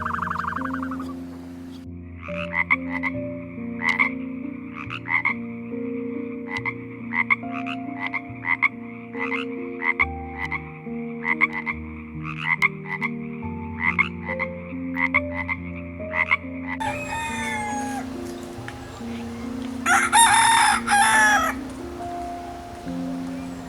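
Frogs croaking in a steady, fast repeating series, about two croaks a second, then a rooster crowing near the end. Background music plays throughout.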